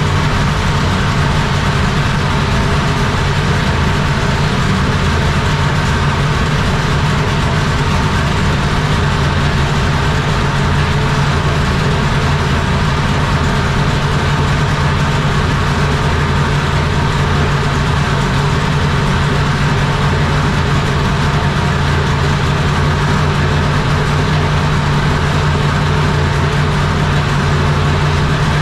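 Dodge R5P7 NASCAR 357-cubic-inch naturally aspirated small-block V8 running at a steady speed, loud and even throughout with no revving.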